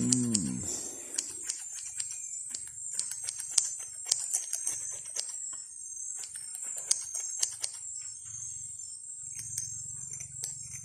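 Steady high buzzing of a rainforest insect chorus, with many sharp clicks scattered through it. A brief falling pitched cry sounds at the very start, and a low steady hum comes in about eight seconds in.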